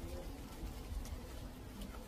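Steady rain falling, with a couple of sharp drop taps in the middle.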